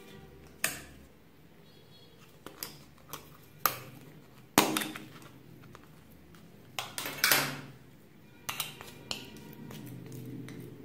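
Irregular sharp clicks and knocks of small clear plastic slime tubs being handled and tipped out over a glass bowl of slime, about a dozen in all. The loudest knock comes a little before halfway, with a quick cluster about two-thirds in.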